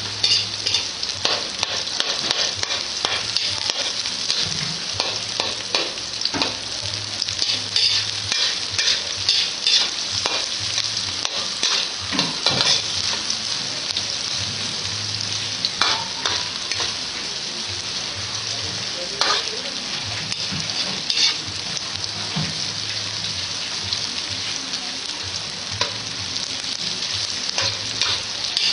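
Sliced red onions and garlic sizzling in hot oil in a metal wok, with a steady hiss. A metal spatula scrapes and clicks irregularly against the pan as they are stirred.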